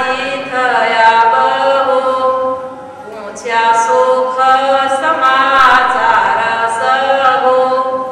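A woman singing a Gujarati devotional verse unaccompanied into a microphone, in long held notes, with a short break for breath about three seconds in.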